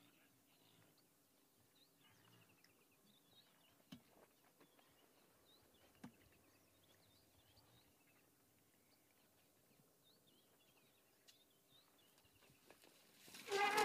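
Faint birdsong, a string of small repeated chirps, with two soft knocks. Near the end a loud, short animal call breaks in.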